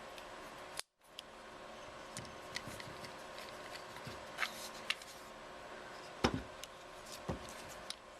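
Light clicks and taps of small metal parts being handled as the anti-walk pins' small retaining screws are fitted and threaded, with two sharper knocks near the end, over a steady faint hum.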